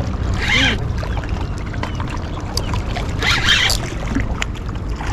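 Steady wind rumble and water lapping at the shore while a spinning reel is cranked to bring in a hooked fish. A few faint ticks and a brief faint voice are heard.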